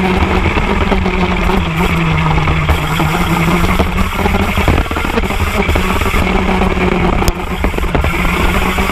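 TM KZ10B 125 cc two-stroke shifter kart engine running hard on track. Its pitch sags a little in the first half and climbs back again.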